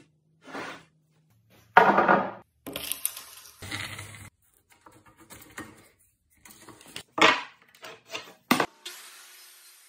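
Rough walnut boards and hand tools being handled: a string of separate knocks, clatters and scrapes, the loudest about two seconds in, with a fading hiss near the end.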